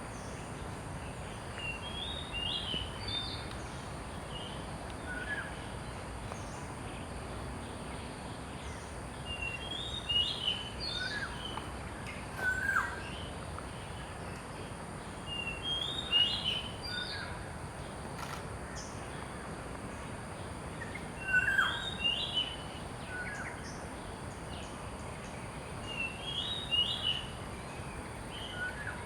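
A songbird repeating a short phrase of a few quick high notes about every five to six seconds, five times, with some lower single notes in between, over a steady background hiss.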